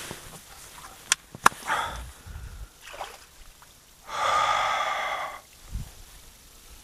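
A person's long, loud exhale, like a heavy breath, about four seconds in, after two sharp clicks and a shorter breath a second or two in.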